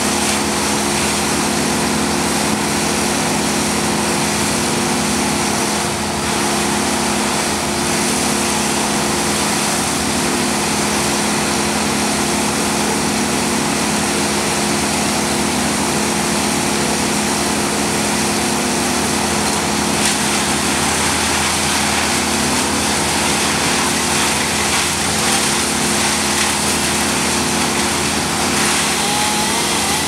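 Engine of tree-service equipment running steadily at a constant speed, a continuous hum with noise over it. A car passes near the end.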